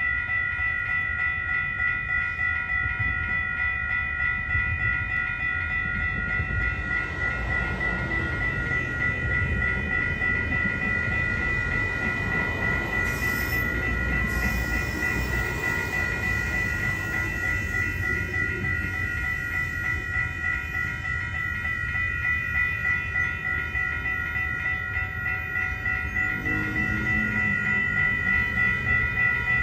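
WCH electronic railroad-crossing bell ringing steadily with an even pulse, its tone turning scratchy. An NCTD Sprinter diesel multiple-unit train rumbles past under the bell from about seven seconds to about twenty seconds in, and a low engine hum comes up near the end.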